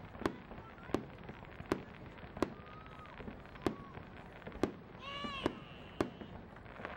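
Aerial fireworks shells bursting, about eight sharp bangs spaced less than a second apart. About five seconds in, a high-pitched voice from the crowd calls out briefly with a rising and falling pitch.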